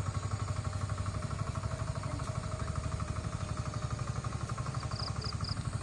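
A small engine running steadily, with an even, rapid pulsing beat.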